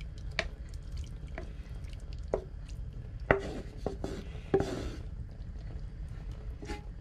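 Wooden spoon scraping and knocking against a frying pan as lamb mince in thick gravy is pushed out into a glass casserole dish: sharp knocks about once a second, the loudest a little past halfway, with the wet sliding of the mince between them.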